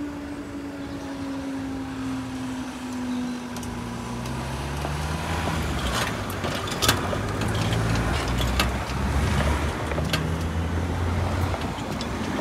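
Level crossing barrier finishing its rise, its mechanism giving a steady whine that slowly falls in pitch and dies away after about three seconds. Then road vehicles pull away and drive over the crossing, engines revving up, with sharp knocks as tyres cross the rails.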